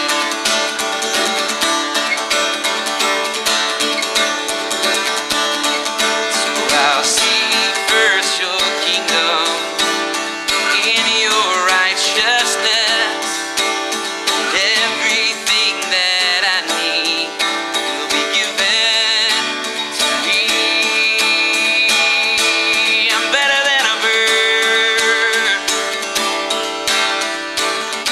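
Music: acoustic guitar strumming steadily, with a higher melody line gliding and holding notes over it and no sung words.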